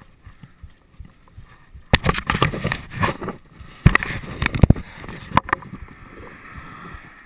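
Handheld or loosely mounted GoPro knocking and rattling as a mountain bike rolls along a paved road, with a cluster of sharp knocks in the middle and wind hissing over the microphone around them.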